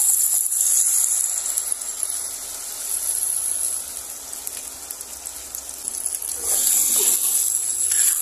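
Ground spice paste sizzling as it is poured into hot oil in a wok, a dense steady hiss that eases a little midway and grows louder again near the end as a metal spatula starts stirring it.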